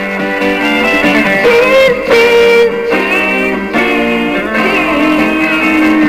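Music with plucked guitar.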